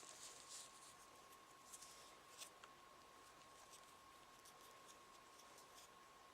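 Near silence: faint rustling and a few small clicks in the first two and a half seconds, then only scattered faint ticks, over a faint steady high whine.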